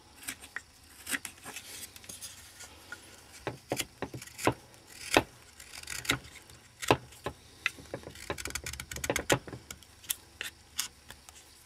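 Small carving knife paring thin chips from a lime-wood blank: irregular short crisp cuts and scrapes, with a louder cut about five seconds in.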